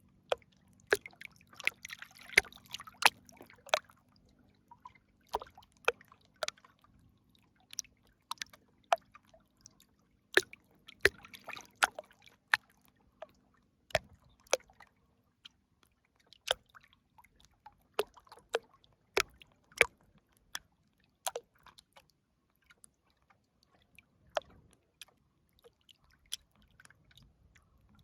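River water plopping and dripping in sharp, irregular drops over a quiet background, with two short spells of bubbling splashes, about two seconds in and again around eleven seconds.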